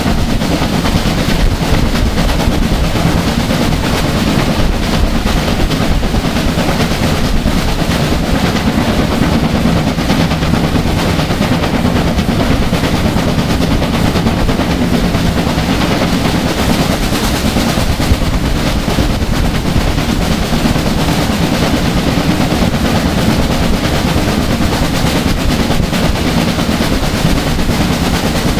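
BR Standard Class 5 steam locomotive 73096, a two-cylinder 4-6-0, working hard at speed: a loud, continuous stream of rapid exhaust beats with no let-up.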